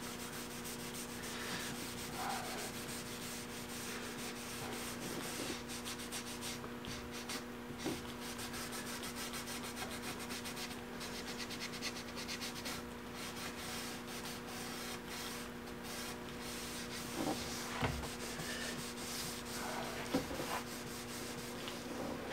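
Stain being rubbed into a wooden cabinet door with a rag, repeated wiping strokes scratching across the wood. A steady hum runs underneath, and there are a few light knocks near the end.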